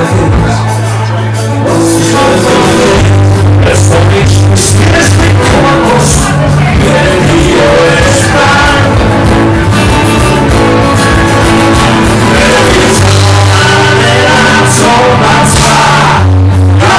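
A live band playing loudly through a club PA: strummed acoustic guitar, bass and drums, with a singer. It is a harsh, overloaded audience recording.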